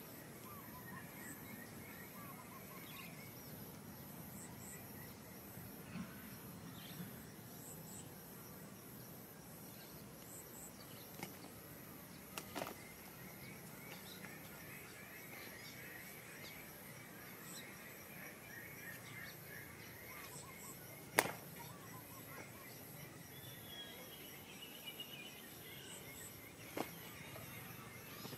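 Outdoor rural ambience: a high insect-like chirp pulsing steadily throughout, with scattered bird calls and a few short, sharp clicks.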